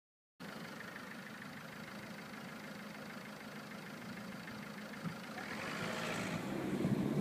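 Car engine idling, heard from inside the cabin: a low steady hum that grows louder near the end.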